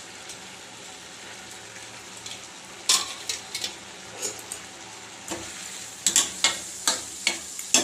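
Cooked pumpkin with jaggery simmering in a steel kadai on a gas stove, a steady hiss. From about three seconds in come sharp clicks and clinks of utensils against the pan and bowl, more frequent near the end as the grated coconut is added.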